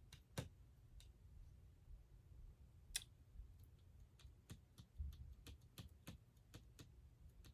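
Near silence with faint, scattered clicks and light taps, coming more often in the second half.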